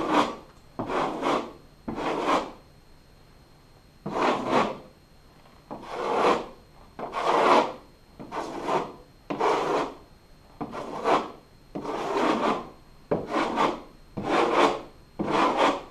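Steel drywall knife scraping across a wall in a dozen or more short strokes, roughly one a second, with a pause of about a second and a half near the start. The blade, held perpendicular to the wall, is knocking down freshly sprayed texture over a drywall patch.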